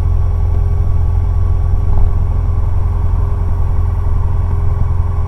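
Cessna 150's Continental O-200 four-cylinder engine running steadily at low power, a strong, even low hum heard from inside the cockpit.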